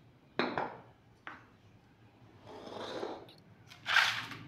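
Ceramic bowls and a steel tray of raw fish being moved about on a stone floor: a few short knocks and scrapes, the loudest one near the end.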